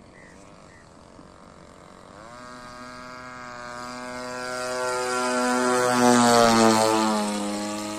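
A Yak 54 RC aerobatic model's DLE 35 single-cylinder two-stroke petrol engine and propeller in a flypast. The engine tone comes in about two seconds in and grows louder as the plane approaches. It passes overhead about six seconds in, its pitch dropping as it goes by, then fades.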